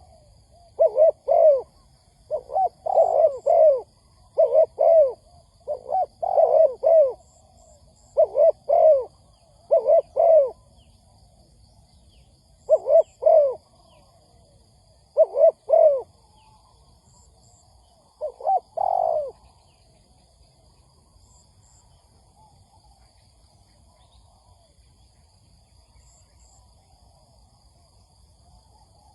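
Spotted dove cooing: short coo notes, mostly in pairs, repeated every second or two, stopping about two-thirds of the way through. A faint steady high-pitched background continues throughout.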